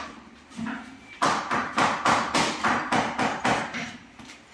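Hammering: a run of sharp strikes, about two to three a second, that pauses briefly, starts again a little over a second in and stops near the end.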